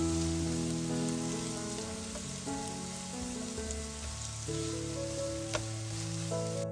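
Food sizzling in hot oil in a frying pan, a steady hiss with a few faint crackles that cuts off near the end, over background music.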